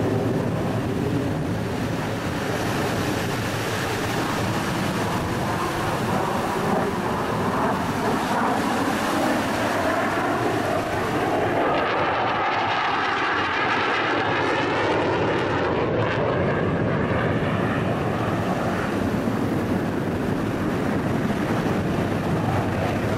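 Saab 35 Draken's afterburning turbojet running in afterburner during a display pass: a steady, loud jet roar, with a rippling, sweeping tone in the middle as the jet goes by.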